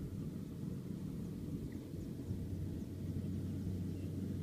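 Distant farm machinery engine running with a steady low rumble and hum, along with a few faint high chirps.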